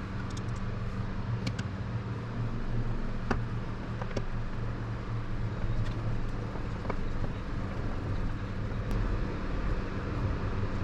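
Steady hum and fan noise of running GPU mining rigs, with a few scattered light clicks and taps of screws being fitted by hand.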